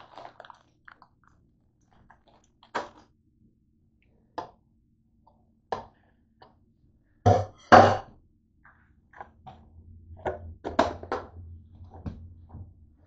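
Scattered knocks and clatters of kitchen items being handled on a counter, the two loudest a quick pair about seven to eight seconds in. A low steady hum starts up a couple of seconds later under further light knocks.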